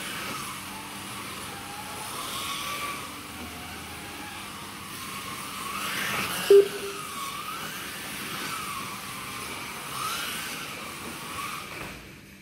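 Slot cars' small electric motors whining as they run around the track, the pitch rising and falling again and again as the cars speed up and slow down. A single short, loud beep sounds about six and a half seconds in.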